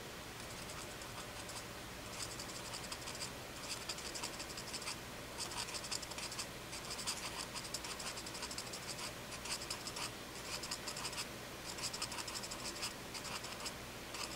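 Paper tortillon scratching over graphite on drawing paper in short repeated strokes, blending a pencil-drawn cloud. The strokes start about two seconds in.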